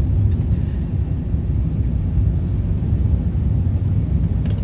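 Steady low rumble of an Airbus A380-800 airliner heard from inside the passenger cabin, with a faint click near the end.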